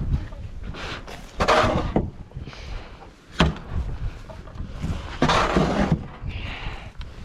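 Snow shovel scraping snow off a balcony in repeated strokes, each a rush of scraping noise, with a sharp knock in the middle.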